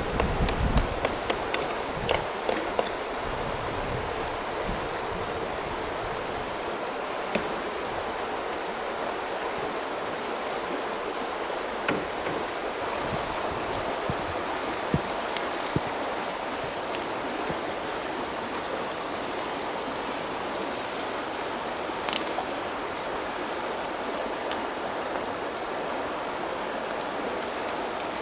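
A river flowing steadily, with a run of sharp clicks in the first few seconds and a few single clicks scattered after.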